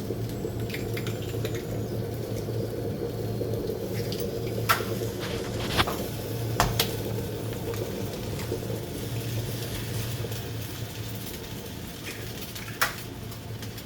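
Kitchen utensils knocking against cookware: a handful of sharp clinks, four in the middle and one near the end, over a steady low hum.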